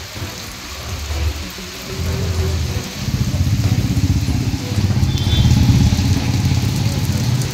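Heavy rain hissing on a wet city street while traffic passes. A low engine rumble swells about two seconds in and stays loud.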